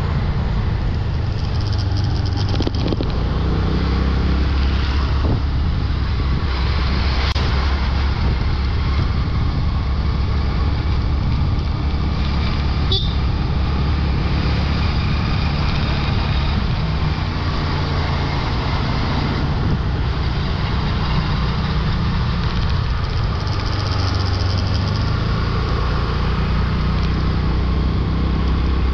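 Motorbike engine running steadily while riding along a busy road, mixed with the noise of passing traffic. A short, sharp, high-pitched sound stands out about thirteen seconds in.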